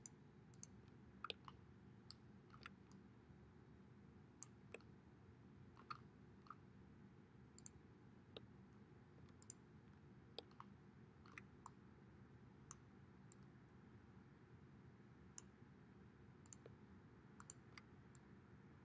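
Faint, scattered computer mouse clicks, irregular and a second or two apart, over near-silent room tone.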